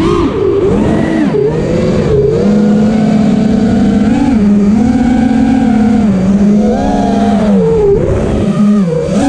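FPV quadcopter's brushless motors and propellers whining, the pitch rising and falling several times with the throttle.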